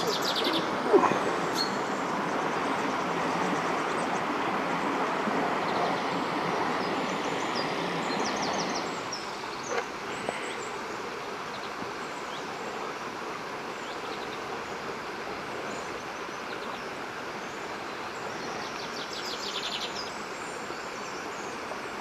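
Steady rush of falling and running water from a waterfall and its stream, a little softer from about nine seconds in, with small birds chirping now and then. A brief sharp knock about a second in.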